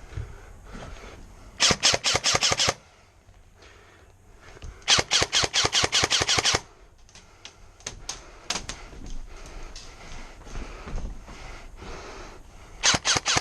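Airsoft gun firing three rapid full-auto bursts of sharp, evenly spaced shots. The second burst is the longest. Fainter scattered pops and clicks come in between.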